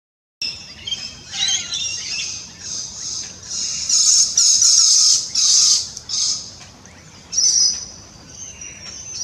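Birds calling in dense, harsh, high-pitched runs that start abruptly and are loudest around the middle.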